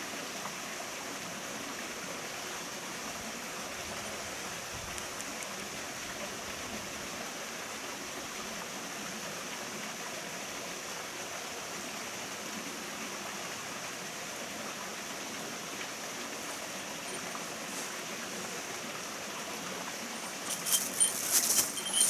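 Mountain stream running steadily, an even rush of water. Near the end, a cluster of light clinks and knocks from an angler's gear as he walks up close.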